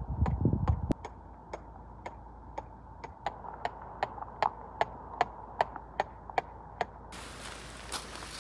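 Steel tent peg being hammered into gravel ground: steady metallic taps, about two or three a second, each ringing briefly. The taps stop about seven seconds in.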